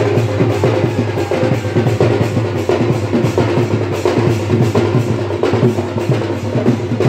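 A folk drum ensemble, led by a large barrel drum (dhol), beats a fast, dense dance rhythm with sharp clacking strikes and a steady held tone underneath.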